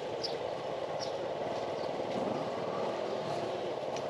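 Steady hum of city street traffic and engines, with a few faint ticks.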